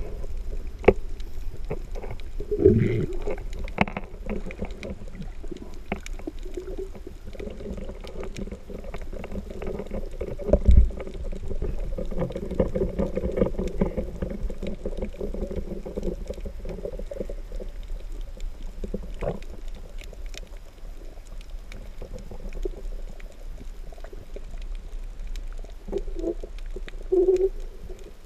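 Underwater ambience heard through a GoPro's waterproof housing: a steady, muffled low rumble with scattered sharp clicks. There are a couple of dull knocks, one about three seconds in and a louder one about eleven seconds in.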